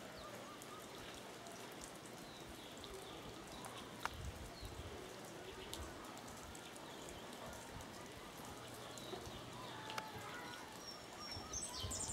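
Faint outdoor ambience: a low steady hiss with scattered light ticks and a few sharper clicks, with faint, brief chirp-like sounds in the background.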